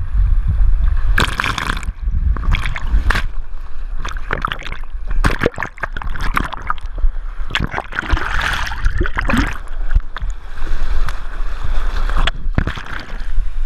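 Fast, churning water of a swimming-pool rapids ride, heard from a camera riding at the surface: a constant deep rumble of rushing water with many sharp splashes and slaps against the camera.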